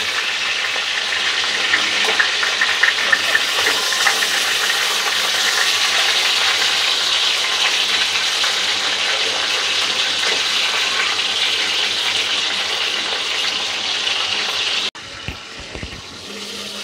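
Chicken pieces frying in hot oil in a kadai: a steady sizzle, with the clicks of a wooden spatula turning the meat in the first few seconds. Near the end the sizzle drops abruptly to a quieter level.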